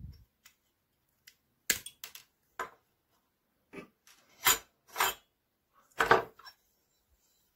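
A series of sharp metal clicks and clacks from a small Tonka metal toy truck cab being handled with pliers and knocked against a hard table. There are about seven clicks, with the loudest from about four and a half seconds in, the last as the cab is set down.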